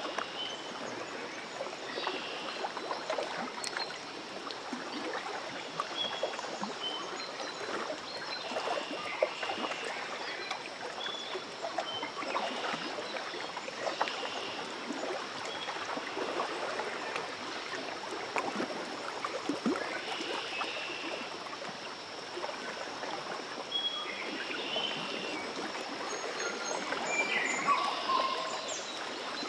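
Lake water lapping at the shore, a steady wash with many small splashes and trickles, under scattered short chirps.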